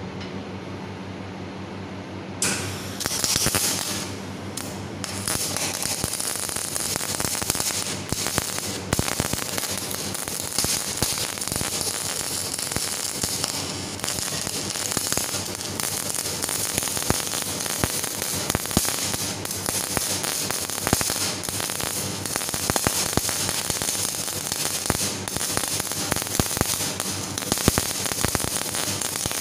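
MAG (CO2-shielded MIG) welding arc on a steel corner joint. After a steady hum, the arc strikes about two seconds in, stutters on and off briefly, then runs as a continuous crackle with sparks of spatter.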